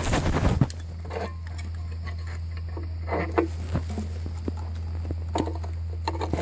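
A steady low hum, with a few faint short scattered sounds over it.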